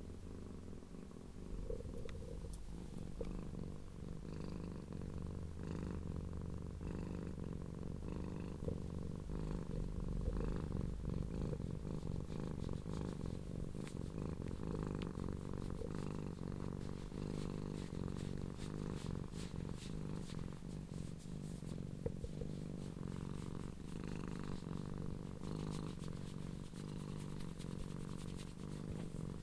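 Blue-and-cream tortoiseshell cat purring steadily and loudly while being stroked, a continuous low, pulsing rumble.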